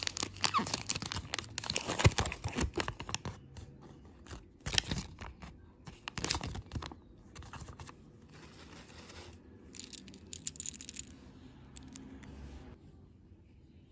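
Candy packaging being crinkled and torn open, with dense crackles and clicks that thin out to a softer rustle after about seven seconds and stop suddenly near the end.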